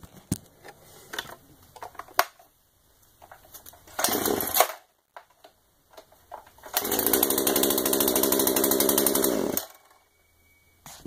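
Poulan P3314 33 cc two-stroke chainsaw being pull-started without choke: a short burst on a pull about four seconds in, then the engine catches near seven seconds and runs steadily for about three seconds before cutting off abruptly.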